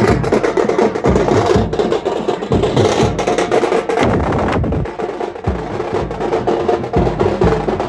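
Drums beaten loudly in a fast, steady rhythm of sharp, cracking strokes, typical of procession drumming.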